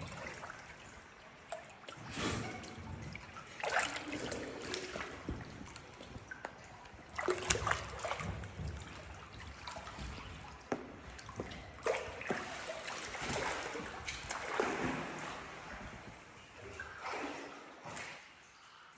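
Water splashing and sloshing in irregular swells, with small sharp splashes and trickles, as people move through a cave river.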